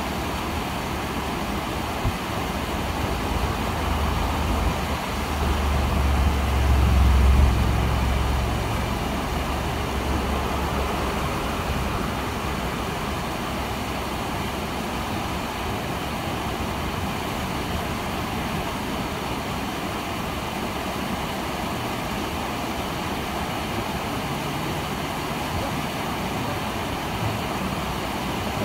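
Man-made waterfall cascading over rocks, a steady rush of water. A low rumble swells from about four seconds in, is loudest near seven seconds, then fades away.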